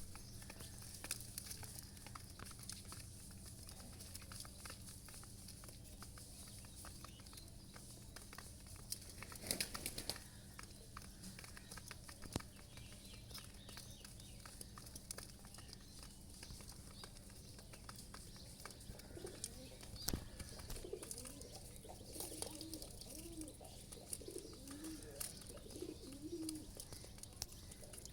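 Feral pigeons cooing in low, wavering calls through the last third, over scattered light clicks and a steady low hum. A short rustling burst comes about a third of the way in.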